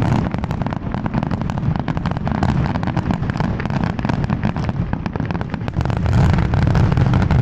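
Fireworks finale barrage: aerial shells bursting in rapid, overlapping succession, many bangs a second over a continuous low rumble, growing heaviest near the end.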